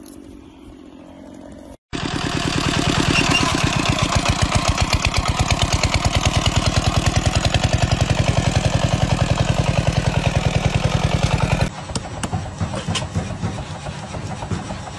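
Walk-behind two-wheel tractor's single-cylinder engine running under load, a loud, even chugging at about ten beats a second that starts suddenly about two seconds in and stops abruptly near twelve seconds. After it, fainter sharp metallic clinks of hot steel being forged.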